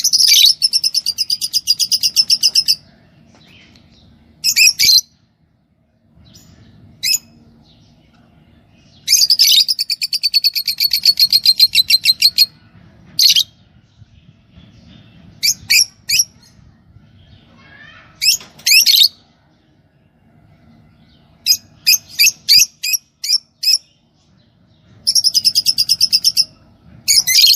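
Lovebirds calling: three runs of fast, rapidly repeated high chirps, each lasting two to three seconds, with shorter single calls and short groups of calls in between.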